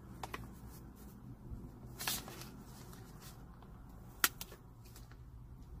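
Paper sandwich wrapper crinkling and rustling as it is handled, with a few scattered clicks, the sharpest about four seconds in, over a low steady hum.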